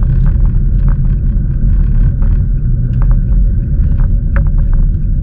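Steady low rumble of a car driving, heard from inside the cabin, with scattered small clicks and rattles.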